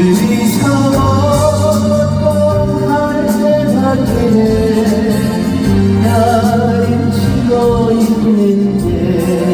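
Live concert music: a band playing a slow melody with long held notes over a steady bass line.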